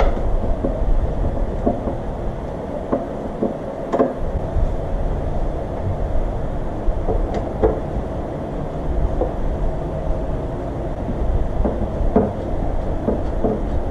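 A steady low rumble runs throughout, with scattered small metallic clicks and knocks from screws being backed out of Harley saddlebag hardware with a hand Phillips screwdriver.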